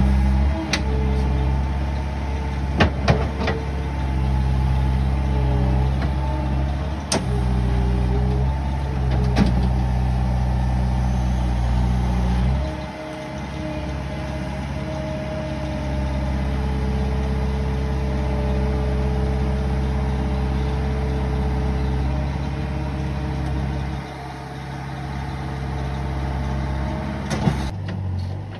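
Diesel engine of a Terex compact track loader running steadily under load, with a few sharp knocks in the first ten seconds. The engine drops in level about twelve seconds in, and again later on.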